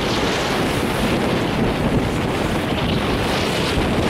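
Strong wind of about 20 knots buffeting the microphone, over the rush of waves and water along the hull of a small sailboat under way. It is a steady, even noise with no single event standing out.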